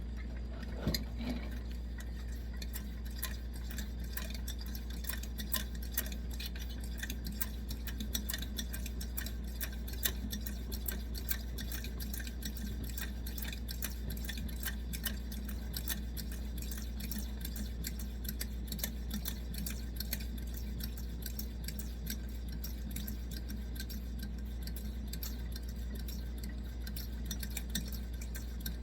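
Coleman 523 stove's fuel tank being pressurized with its built-in hand pump: a long run of quick, even pump strokes, each making a light click, over a steady low hum.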